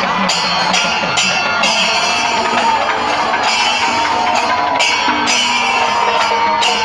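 Festival percussion ensemble playing: drums with bright cymbal clashes roughly twice a second, a wavering high tone over them, and crowd noise beneath.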